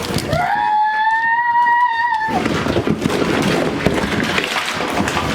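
A child's long, high squeal of excitement, rising at the start and falling away at the end. It is followed by a busy rattling and rustling clatter of plastic toy pieces and packaging being tipped out.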